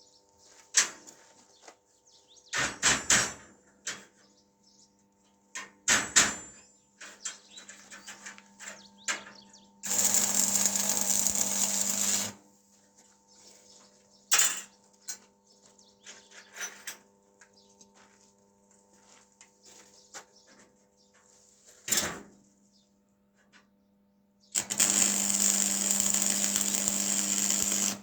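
Metalworking sounds: scattered knocks and clinks, and twice a power tool runs steadily for two to three seconds, about ten seconds in and again near the end.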